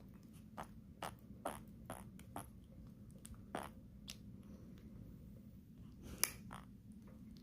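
Newborn baby making a string of short, wet smacking noises at an irregular pace, the loudest about six seconds in, over a faint steady hum.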